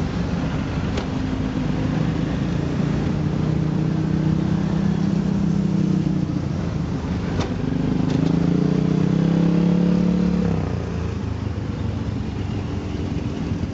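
Bajaj auto-rickshaw engine running, heard from inside the open cab in slow traffic. Its pitch rises as it speeds up from about eight seconds in, then drops back about ten and a half seconds in. There is a single sharp click a little past seven seconds.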